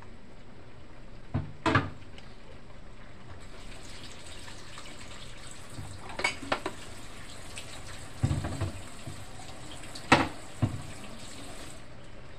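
Cooking sounds from a pan of vegetable stew simmering in a nonstick pan: a steady hiss with sudden knocks and clatters of utensils against cookware, a pair about a second and a half in and several more between about six and eleven seconds in.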